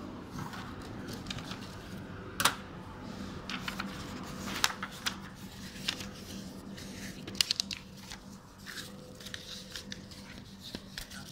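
Paper forms and a passport handled on a metal counter tray: rustling with scattered clicks and taps, one sharp click about two and a half seconds in, over a steady low hum.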